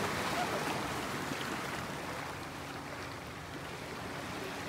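Steady wash of sea surf and wind, with a faint steady hum underneath.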